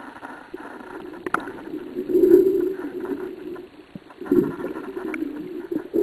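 Underwater noise: a low rushing that swells twice, with a sharp click about a second in and another near the end.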